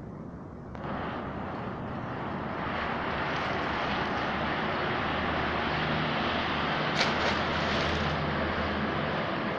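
Steady engine noise with a low hum. It comes in suddenly about a second in, builds over the next couple of seconds, then holds; there is a brief click near the end.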